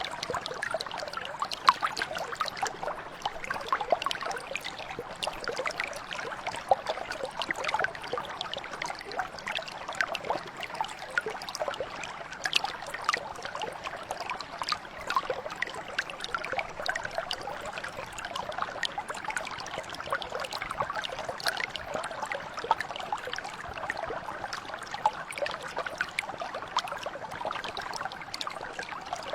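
Shallow stream or mountain brook flowing steadily, water babbling and trickling over stones with many small splashes and gurgles.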